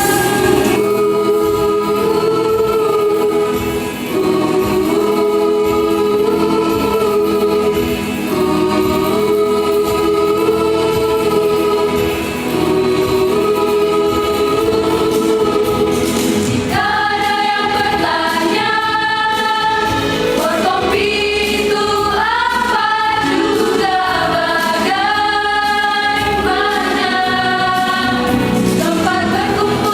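Choir singing: long held chords for about the first half, then a busier, higher-pitched melody from about halfway through.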